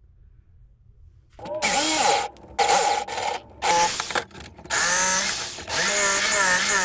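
Power drill run in a series of short bursts, about five, its motor whine dipping and rising in pitch under load, starting about a second and a half in.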